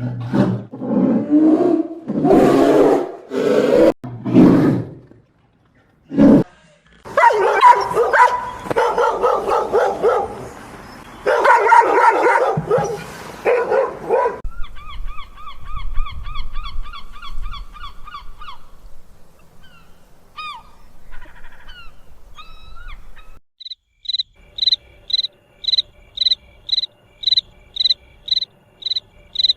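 A sequence of animal calls. Loud roaring and barking-type calls fill the first half, then a fast chirping trill and a few short bird calls. Near the end comes an even insect chirping, about two chirps a second.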